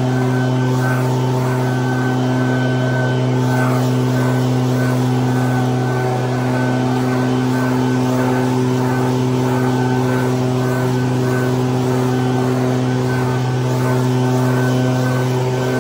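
Echo backpack leaf blower's two-stroke engine running steadily at high throttle, with the rush of its air stream blowing dry leaves.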